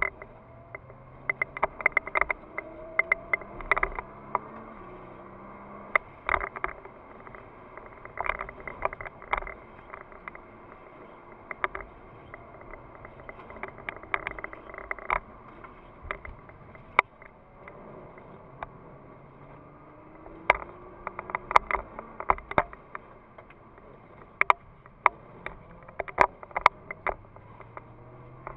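Nissan GT-R R35's twin-turbo V6 heard from inside the cabin, pulling hard through the revs in repeated rising sweeps. Clusters of sharp clicks and rattles come during the pulls.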